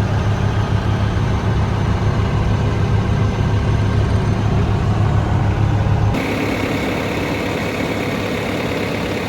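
Bobcat S590 skid steer loader's diesel engine running steadily at idle. About six seconds in the sound changes abruptly: the deep low hum drops away and a thinner, higher running sound remains.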